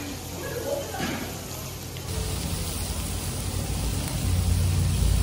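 Faint room noise and voices for about two seconds. Then, after a sudden change, samgyeopsal (pork belly) sizzles on a tabletop grill: a steady hiss over a low rumble that gets louder near the end.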